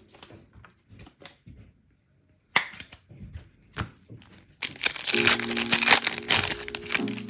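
A foil pack of NFL trading cards being torn open, its wrapper crinkling, with scattered handling clicks and one sharp click about two and a half seconds in. The tearing and crinkling gets loud about two-thirds of the way through, and background music comes in with it.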